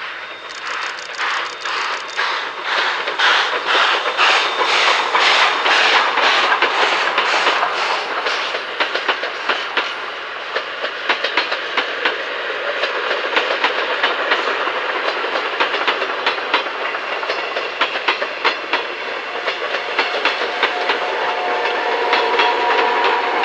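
Steam locomotive working hard as it passes, its exhaust chuffing in quick even beats about two to three a second. The chuffs give way to the clickety-clack and rumble of the coaches' wheels over the rail joints. Near the end a steady hum comes in as the electric locomotive at the rear of the train goes by.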